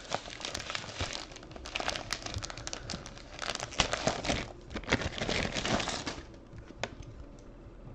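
Gold tissue paper crinkling and rustling as a slabbed trading card is unwrapped from it, with a few sharp clicks from handling the hard plastic card case. The rustling dies down about six seconds in.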